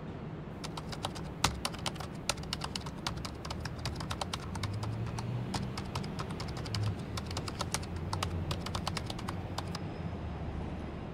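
Typing on a computer keyboard: a run of quick, uneven key clicks that stops about ten seconds in, over a low steady background rumble.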